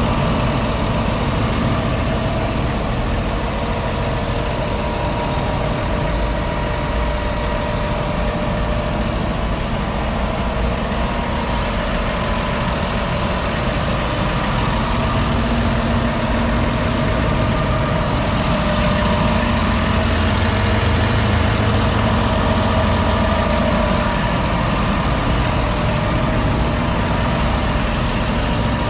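Fendt 828 Vario tractor's 6.1-litre six-cylinder diesel engine idling steadily.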